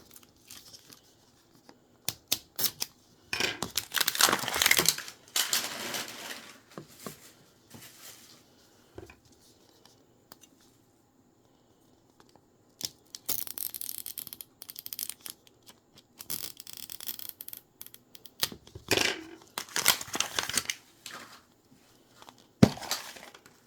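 Small plastic toy packaging being torn open and crinkled in several bursts, with scattered clicks and one sharp click near the end.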